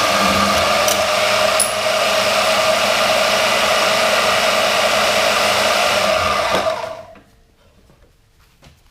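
Portable band saw running and cutting through stock with a steady whine, its variable-speed dial set at about 2.5. It shuts off about seven seconds in and quickly winds down to quiet.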